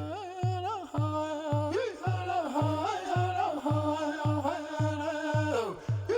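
Music: a singer holds and slides a wavering melody over a steady, deep drum beat.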